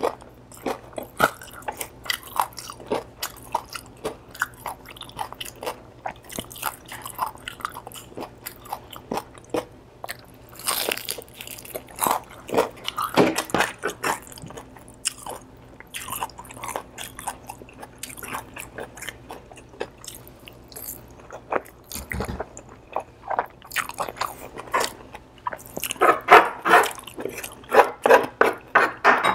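Close-miked chewing and biting of crispy deep-fried pork: a steady run of crunches and wet chews, with a burst of louder, quick crunches near the end.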